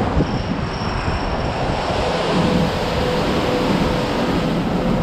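Automatic car wash machinery running with a steady rushing roar; a faint hum joins in about two seconds in.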